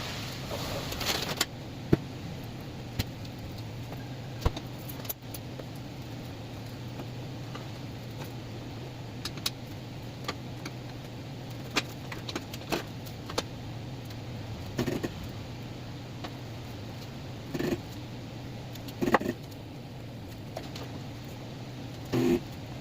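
Metal tools and parts clinking and knocking in scattered single sharp hits over a steady low hum, with a few short louder bursts near the end, during work at a car's wheel hub.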